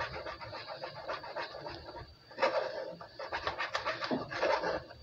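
Wooden spoon pressing and scraping blended tomato sauce through a plastic mesh strainer, making a run of quick, wet scraping strokes that get louder and busier about halfway through.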